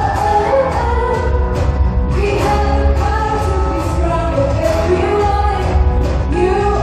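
A woman singing live into a microphone over amplified backing music with a heavy bass, holding long notes that waver slightly.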